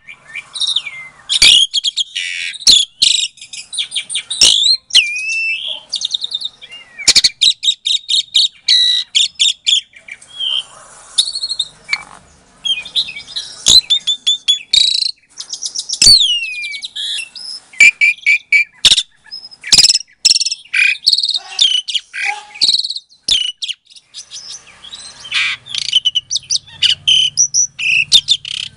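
Jalak suren (pied starling) singing a long, varied song: loud whistles and gliding notes mixed with fast rattling trills and many sharp clicks, almost without pause.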